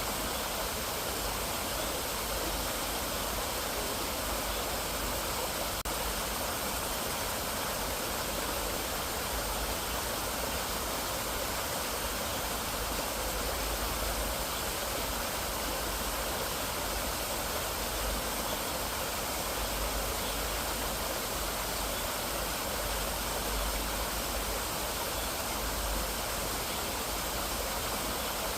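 Mountain stream water flowing over rocks in a steady, unbroken rush.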